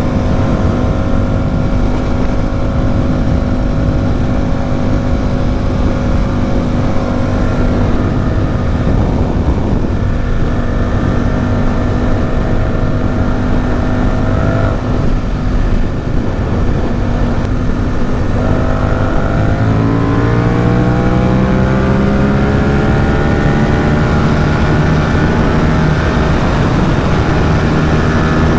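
Ducati SuperSport 950 S's 937 cc L-twin engine pulling at steady revs while riding. About two-thirds of the way through its pitch rises as the bike accelerates, then levels off at higher revs.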